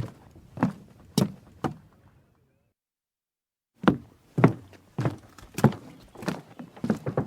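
Footsteps in tennis shoes on a wooden boat dock, each step a light hollow clunk of the boards. Four steps, then dead silence for over a second and a half, then the walking resumes, picking up pace near the end.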